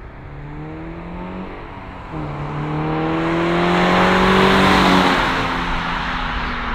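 A 2022 Subaru BRZ's flat-four engine accelerating hard past, revved toward redline. The engine note climbs, breaks off briefly about two seconds in and comes back lower, like an upshift, then rises again. It is loudest as the car passes, a bit more than halfway through, then drops in pitch as it pulls away.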